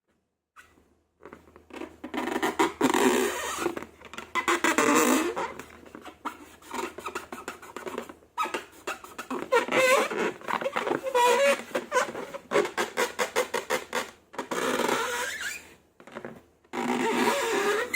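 Slime being squished and stretched by hand: rapid sticky crackles and clicks in bursts, with brief pauses between handfuls.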